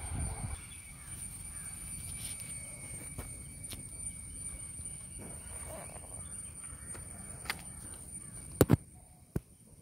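Outdoor ambience at the water's edge: a steady high whine over a faint low rumble, broken near the end by two sharp clicks in quick succession and two more single clicks after.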